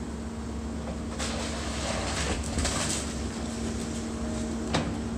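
Excavator's diesel engine running at a working pace with a steady hum, a stretch of rattling debris noise from about one to three seconds in, and a single sharp knock near the end.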